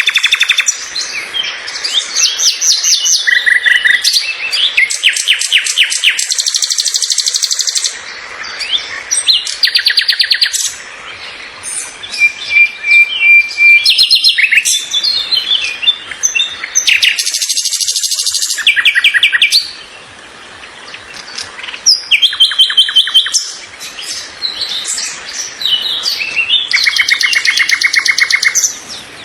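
Several songbirds singing and chirping together in fast trills and short whistled phrases, with a held whistle about halfway through and a few brief lulls.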